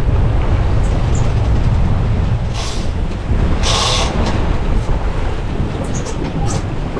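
Steady low rumble of a boat running underway, with wind buffeting the microphone. Two louder bursts of hiss come about two and a half and four seconds in.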